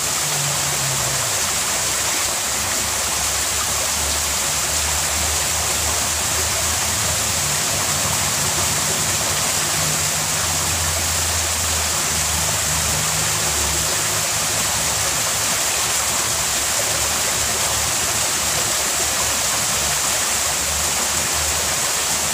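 Shallow stream running fast over rocks, a steady, unbroken rush of water.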